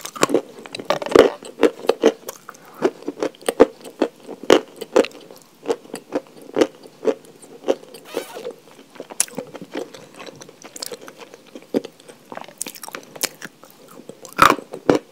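A person biting and chewing crunchy chalk close to the microphone: irregular sharp crunches and crackles, several a second, with a loud crunch near the end.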